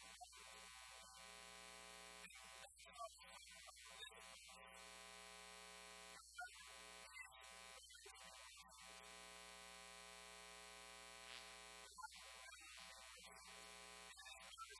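Near silence with a steady, faint electrical hum made of many evenly spaced tones, dropping out briefly several times.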